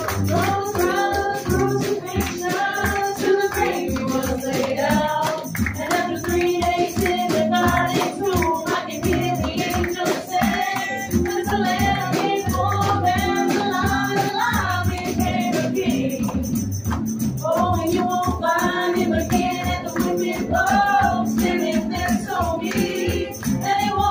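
A Christian song with singing over steady percussion.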